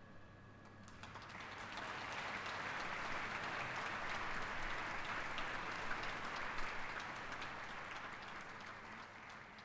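Audience applauding. The clapping starts about a second in, swells, then slowly fades.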